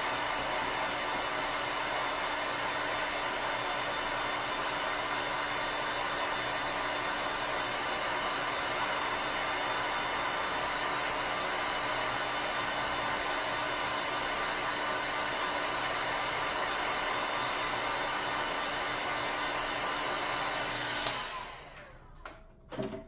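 Handheld dryer blowing steadily with a low hum, drying wet watercolour paint. It switches off about 21 seconds in, and a short knock follows near the end.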